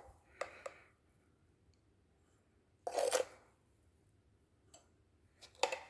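Metal spoon scooping granulated sugar and tipping it into a cup: a few short gritty scrapes and crunches, with light clicks of the spoon.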